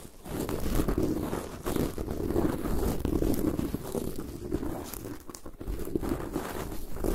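A thin ear-cleaning stick scratching and rubbing on the grille of a Zoom H6 recorder's XY microphone capsule, right against the microphone: continuous crackling scratches full of tiny clicks, easing off briefly now and then between strokes.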